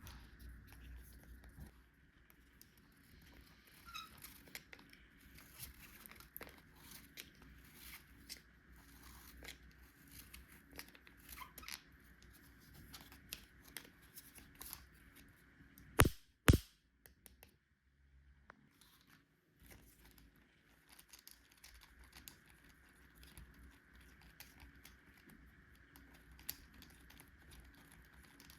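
Toy packaging being torn open and crinkled, with many scattered small clicks and rustles of handled pieces. A little past the middle come two sharp, loud clicks about half a second apart.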